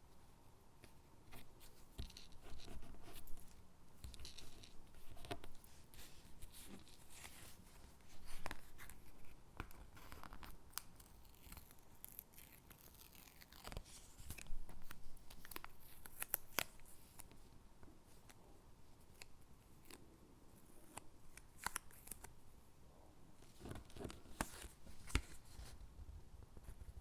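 Stickers being peeled from their backing sheet and pressed onto paper cutouts: soft, irregular peeling, rustling and tapping, with a few louder bursts of paper handling.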